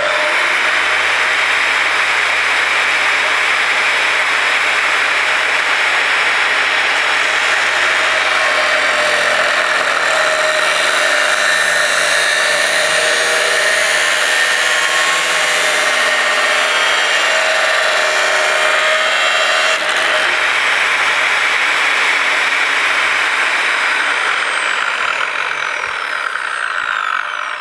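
Makita angle grinder with a 230 mm cut-off disc running at full speed in a home-made chop-saw stand. Through the middle it cuts through a 30×30 square steel tube, the sound wavering under the load. Near the end the disc winds down, its whine falling in pitch.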